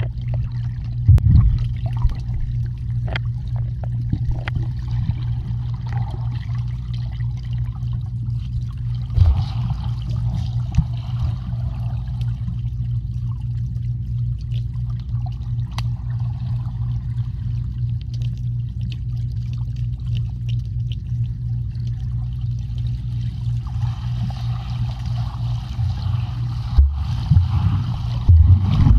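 Swimming pool water heard from underwater: a steady low hum with muffled bubbling and scattered small knocks. The bubbling swells about ten seconds in and again near the end.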